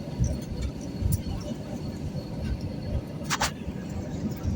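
Airliner cabin noise: a steady low rumble with irregular low thumps and a background murmur of voices. A brief sharp click comes about three and a half seconds in.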